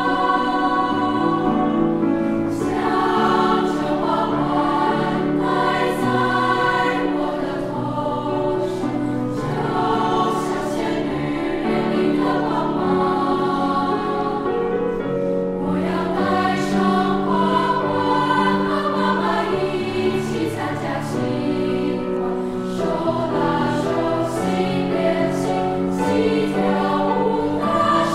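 Youth choir, mostly girls' voices, singing a slow song in several parts with long held notes.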